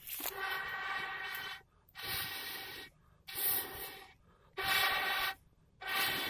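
Someone blowing hard through a metal blow pipe into smouldering campfire embers to rekindle the flame: about five long, rushing blows, roughly one a second, with short pauses for breath between them.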